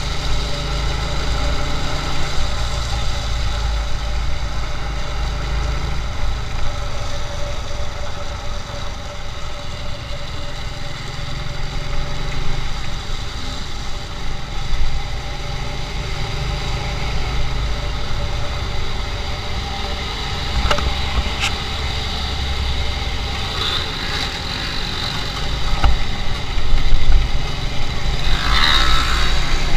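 Motorcycle engine running steadily as the bike is ridden through city traffic, with wind rumbling on the microphone. A vehicle horn sounds briefly near the end.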